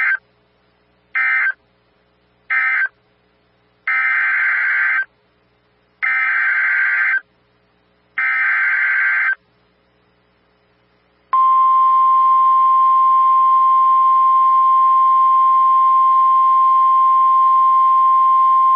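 Emergency Alert System tones from NOAA Weather Radio. First three short bursts of buzzy digital data, the end-of-message code of the tornado warning. Then three longer data bursts, the SAME header of the next warning. About eleven seconds in, the steady single-pitch 1050 Hz weather-radio alert tone begins.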